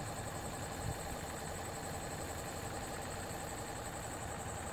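Steady background machine hum with a faint high whine running under it.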